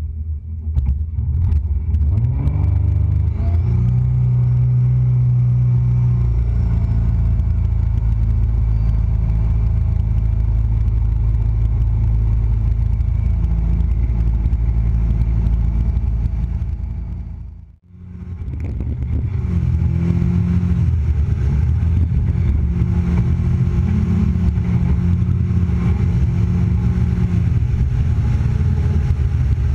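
Jettec 420 jet boat's turbocharged V6 engine revving up, rising in pitch about two seconds in, then running steadily at speed. About two-thirds through, the sound fades out for a moment and comes back at the same steady run.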